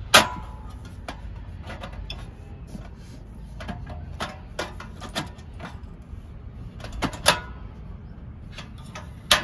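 Sharp plastic-and-metal clicks and knocks from a portable butane cassette stove as a gas canister is fitted into its compartment and the control knob is worked. The loudest click comes just after the start, two more about seven seconds in, and one near the end, with lighter clicks between.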